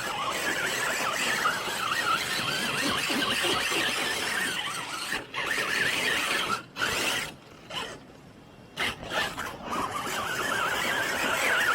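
Radio-controlled rock bouncer trucks' electric motors and geared drivetrains whining, the pitch wavering up and down with the throttle. It cuts out briefly around seven seconds in and again for about a second near nine seconds, then picks up again.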